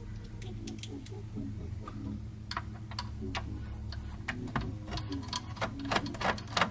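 Irregular light clicks and ticks of a screwdriver backing out the single screw that holds a hard-drive bracket in a desktop PC case, with metal parts being handled. The clicks come thicker in the second half.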